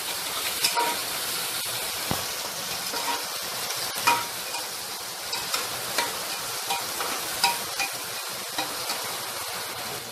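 Chopped vegetables sizzling in hot oil in an open pressure cooker while a spatula stirs them, scraping and knocking against the pot about once a second.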